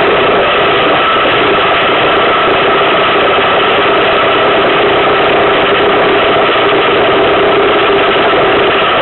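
Iceboat sailing across the ice: a loud, steady noise of the runners on the ice and the wind, with a couple of steady hum tones running through it.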